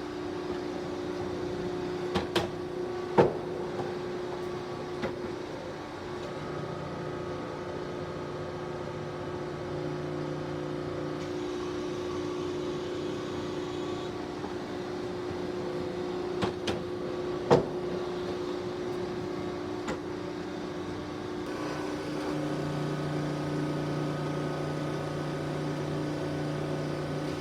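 Industrial machinery running with a steady hum, a lower drone that comes and goes, and a few sharp clunks, twice in pairs.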